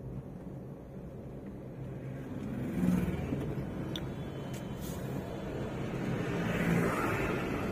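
Engine hum and road noise heard from inside a moving car, steady and low, with oncoming traffic swelling louder as it passes, once about three seconds in and again near the end.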